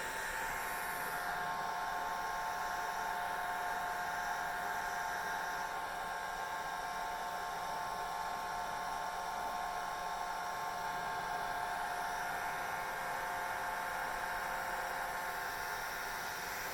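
Hair dryer running steadily: an even rush of air with a constant motor whine.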